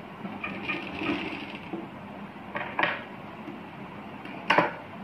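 Handling noise at a sewing machine: fabric rustling as the stitched piece is pulled away, then two sharp clicks. Near the end comes one louder snip of scissors cutting the thread at the needle.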